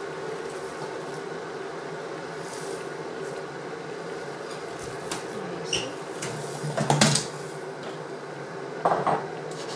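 Dry rice poured from a bowl into a stainless steel pan of simmering broth over a steady low hum, with a few clinks and knocks of dishware, the loudest about seven seconds in and another about nine seconds in.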